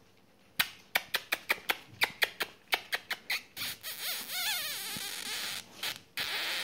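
Newspaper crackling and rustling under border collie puppies' paws: a quick irregular run of sharp crackles, then a steadier rustle with a few faint, wavering high squeaks.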